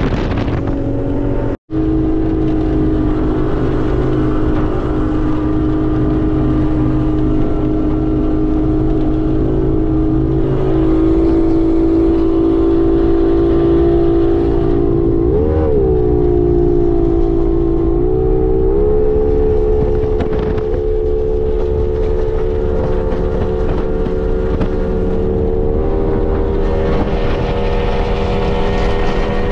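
Single outboard motor on a small speedboat running fast across choppy water, a steady engine note over the rush of water and spray. The pitch dips briefly and recovers about halfway through, then steps up twice. There is a split-second gap in the sound near the start.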